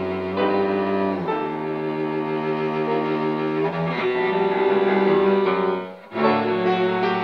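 Cello playing slow, sustained bowed notes that change pitch every second or two, with a short break about six seconds in before the next note.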